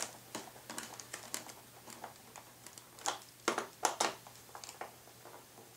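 Small screwdriver turning screws into the wing mount of a foam RC plane: a scatter of light, irregular clicks and ticks, a few louder ones in the middle, over a faint steady hum.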